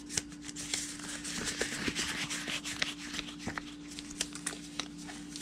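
Gloves being pulled on by hand: rustling with many small irregular clicks and snaps, busiest about two seconds in, over a steady low hum.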